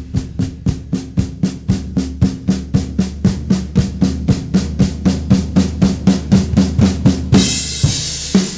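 Pearl Vision VSX birch drum kit played in an even run of drum strokes, about four a second, with a cymbal crash about seven seconds in as the playing goes on.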